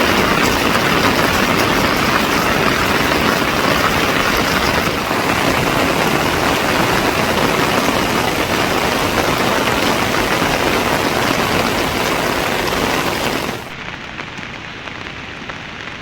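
Heavy rain pouring down in a steady, dense hiss. Near the end it drops abruptly to a softer rain sound.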